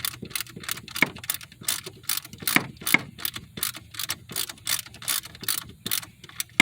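Hand ratchet wrench clicking as bolts are worked on, a steady run of sharp clicks about three to four a second.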